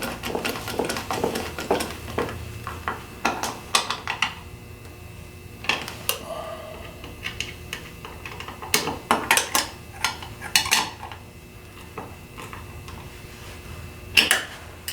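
Hand tools clinking on the metal bracket and bolts as the transducer mount's bolts are snugged up: irregular sharp metallic clicks and taps in short clusters.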